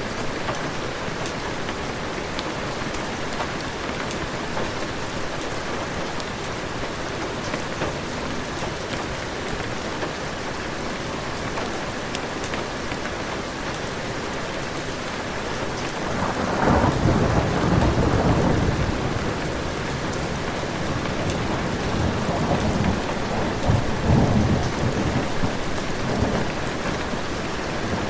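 Heavy rain falling steadily, with a long roll of thunder breaking in about two-thirds of the way through and rumbling on in swells until near the end.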